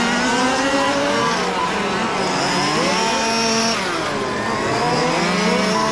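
Several large-scale RC Formula 1 cars' small two-stroke petrol engines racing, with several engine pitches rising and falling at once as the cars accelerate, slow and pass.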